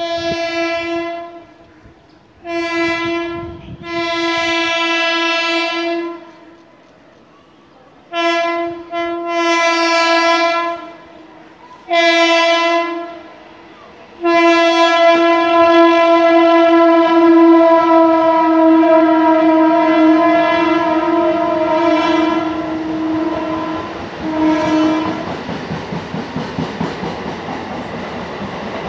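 Electric local train's horn sounding a series of blasts, six short-to-medium ones, then one long blast of about ten seconds and a last short one. The train then runs past, its wheels clattering on the rail joints in a quick, even rhythm near the end.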